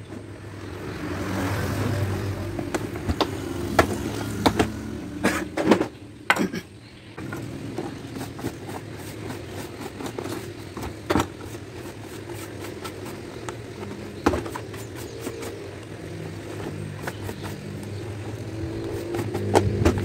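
A motor vehicle engine running steadily in the background, with scattered sharp clicks and knocks from the suitcase and its zipper being handled, the loudest about four to six seconds in.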